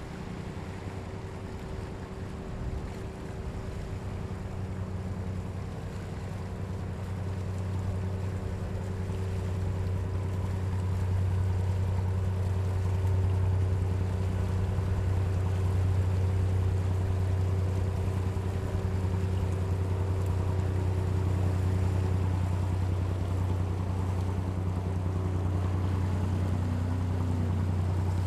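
A small fishing boat's engine running steadily with a low hum, growing louder over the first ten seconds or so and then holding level.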